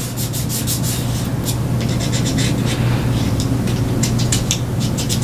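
Fingertips rubbing dry pastel pigment into a plastic model kit part in a quick run of scratchy rubbing strokes, over a steady low hum.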